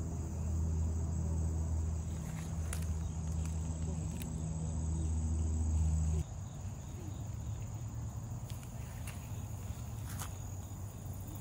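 Insects singing with a steady, high-pitched, unbroken tone in the garden, over a loud low machine-like hum that cuts off suddenly about six seconds in, leaving a fainter low rumble.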